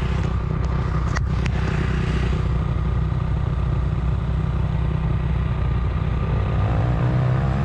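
Dirt bike engine idling steadily, with a few sharp clicks and knocks about a second in. Near the end the revs pick up.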